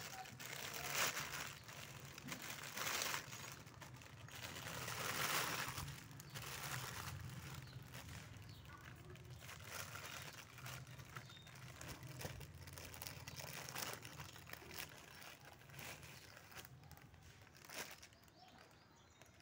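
Clear plastic packaging bag crinkling and rustling in uneven swells as a toy tractor is pulled out of it, the loudest rustles in the first few seconds, then lighter crackling.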